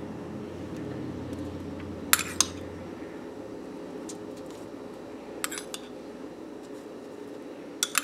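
Metal spoon clinking against a small glass bowl while scooping chicken pieces out of it. Short pairs of clinks come about two seconds in, midway and at the end, over a steady low hum.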